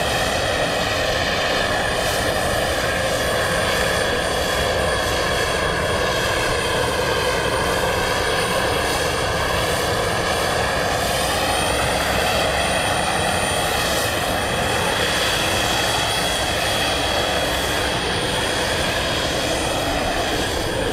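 Turboprop engines of an Airbus A400M military transport running steadily as a loud, constant drone, with several whining tones that slowly waver and beat against each other.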